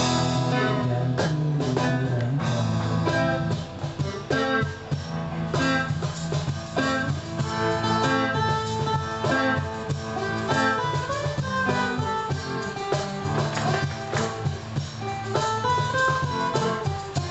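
Live busking music: an instrumental passage led by guitar, with picked and strummed notes.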